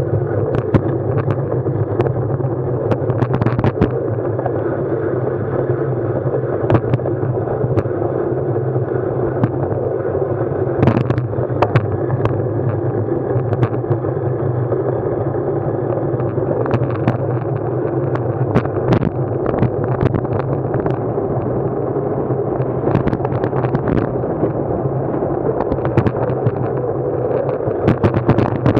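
A vehicle's engine running steadily throughout, with many short clicks and knocks over it.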